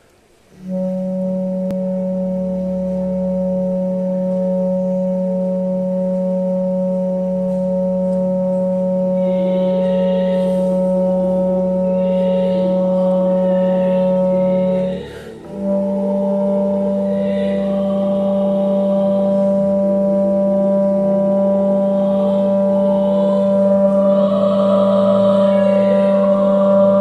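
Bass clarinet playing two long, steady held low notes, with a short breath break at about 15 seconds.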